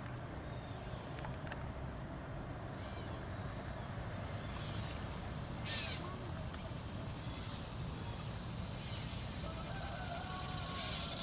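Outdoor ambience: a steady rushing noise with a few faint bird calls, and a brief knock or bump about six seconds in.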